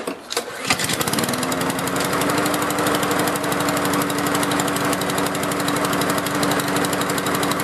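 Honda GCV160 single-cylinder lawnmower engine pull-started, catching about a second in and then running steadily. Its compression is restored now that the dents keeping the valves from shutting have been hammered out of the valve cover.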